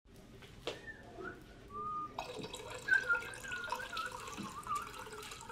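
Water running from a bottled water cooler's tap into a mug, starting about two seconds in as a steady splashing flow with a wavering high tone over it.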